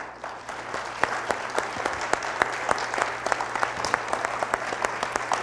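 Congregation applauding, many hands clapping together. It starts suddenly and keeps up at a steady level.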